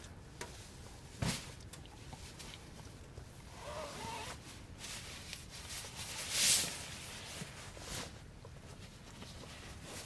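Cloth rustling and swishing as clothes are pushed into a fabric pillowcase, with a soft knock about a second in and a louder swish a little past the middle.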